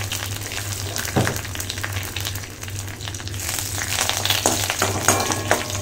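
Curry leaves, dried red chillies and seeds sizzling in hot oil in an aluminium kadai, off the heat, for a tempering. A metal spoon scrapes and clinks against the pan as it stirs them.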